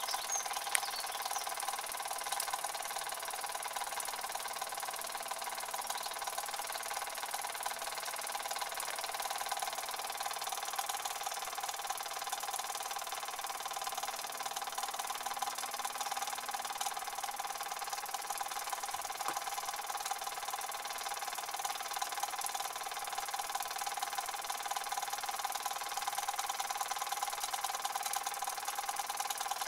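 Small toy live-steam engines with oscillating cylinders running steadily, with one sharp click about a second in.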